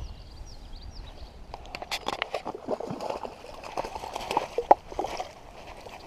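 Water splashing and sloshing in a string of irregular short splashes, the loudest a little before the end.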